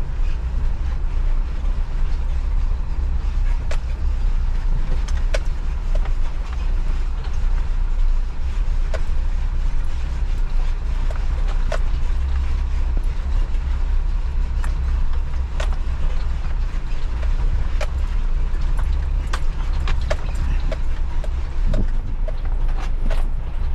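A vehicle driving: a steady low rumble with frequent brief sharp knocks and rattles scattered through it.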